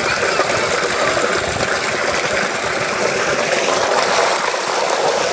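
Water running steadily out of a plastic pipe into a shallow muddy pool, an even rushing splash.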